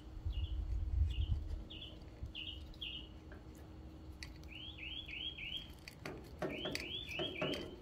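A bird chirping in quick series of short, hooked notes, two or three a second, louder and fuller in the last two seconds. A low rumble sits under the first second and a half.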